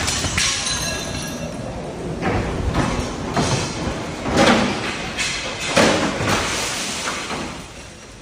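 Storm wind and rain with a series of loud bangs and rattles about every half second to second, the loudest about four and a half and six seconds in.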